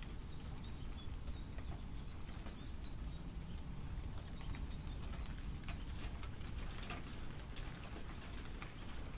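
Rain falling and pattering, with drops ticking close by more densely in the second half, over a steady low rumble. A bird chirps in the first few seconds.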